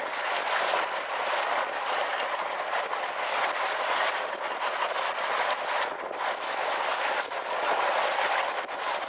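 Small outboard-powered boat running over choppy water: a steady rush of water and wind that swells and dips with the waves.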